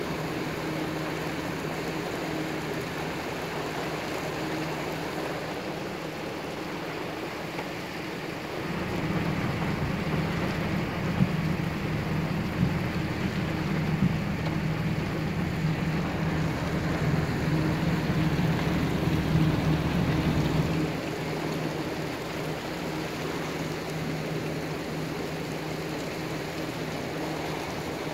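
Heavy rain falling steadily, with a low steady motor hum underneath that grows louder through the middle stretch and then eases back.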